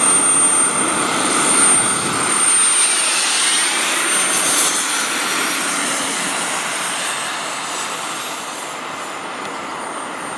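Jet engines of a radio-controlled scale A-10 model, a steady high-pitched whine over a rushing hiss, as the model lands and rolls along the runway. The sound eases a little over the last few seconds.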